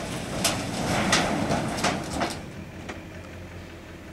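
Crumpled sheet-metal shed being dragged over dirt by a rope: a rising scrape and crunch of metal with several sharp clanks in the first couple of seconds, then easing off. A steady low hum, the pulling LB7 Duramax diesel truck's engine, runs underneath.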